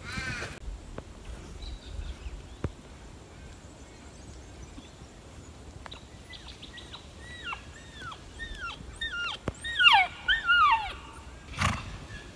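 An animal making a run of short, falling, squeaky calls, about two a second at first, then louder and crowding together near the end. A brief loud burst of noise follows just before the end.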